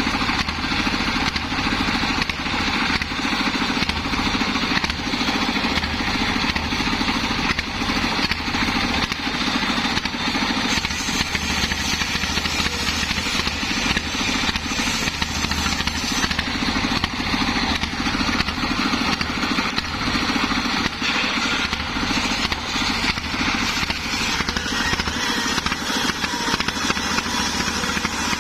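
Stationary diesel engine running steadily, belt-driving a large homemade circular saw blade as it rips lengthwise through a teak log. The engine's rapid firing runs under the blade's steady cutting noise.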